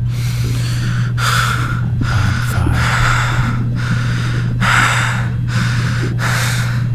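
A person panting in quick, breathy gasps, about one a second, over a steady low electric buzz that fits a wand vibrator running.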